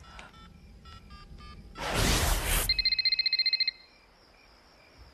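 Mobile phone keypad beeping as a number is dialled, a short loud burst of noise about two seconds in, then an electronic phone ring warbling rapidly for about a second.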